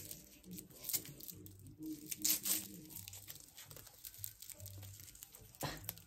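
Adhesive-backed hook-and-loop (Velcro) tape being handled: a few short, scattered tearing and crinkling sounds of the strip and its paper backing, fairly faint.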